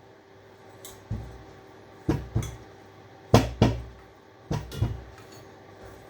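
A series of heavy knocks and clunks from scrap being worked loose by hand, about seven in all, most of them in quick pairs.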